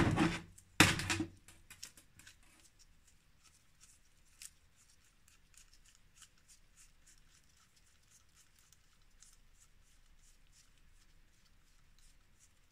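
Mafac Racer centre-pull brake caliper being handled on a workbench: two loud knocks in the first second and a half as it is picked up, then faint scattered metallic clicks as the nut and washers on its pivot bolt are worked by hand.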